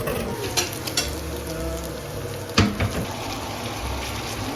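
Food sizzling in a frying pan, a steady hiss broken by a few clicks and one sharper knock about halfway through.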